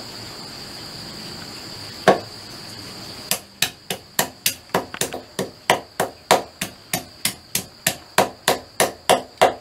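A large knife chopping chicken head, feet and wings into mince on a wooden stump chopping block: one chop about two seconds in, then rapid even chops about three a second. A steady high insect drone runs underneath.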